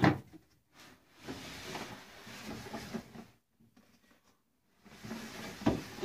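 Clear plastic Really Useful Box tub sliding out of its shelf in a snake rack like a drawer: a knock as it is gripped, a scraping slide of plastic on the shelf, and another knock near the end.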